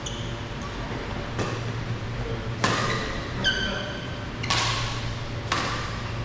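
Badminton rackets striking the shuttlecock in a rally, four sharp hits about a second apart that ring briefly in the hall. Shoes squeak on the court floor between shots, over a steady low hum.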